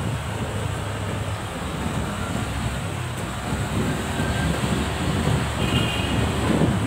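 Steady rumble of road and traffic noise from riding along a city street, with wind buffeting the microphone. A brief faint high-pitched squeak about six seconds in.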